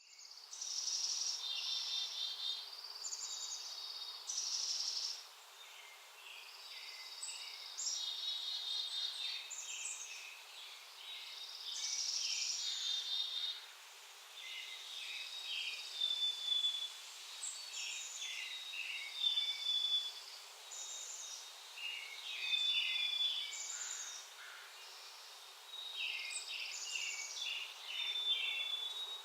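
Several small songbirds calling and singing over each other, with high chirps and repeated buzzy trills about a second long, almost without pause.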